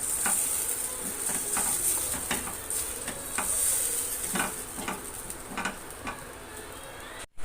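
Coriander chutney paste sizzling in hot oil in a kadai, stirred with a spoon that knocks and scrapes against the pan about once a second.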